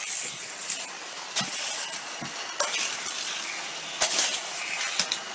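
Hot Wheels die-cast toy cars running around a plastic race track: a steady rattling hiss of small wheels on the track, with a few sharp clicks as the cars hit joints and curves.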